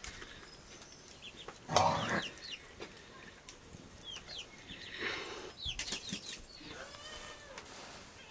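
Chickens clucking, with many short high chirping calls and a louder burst about two seconds in.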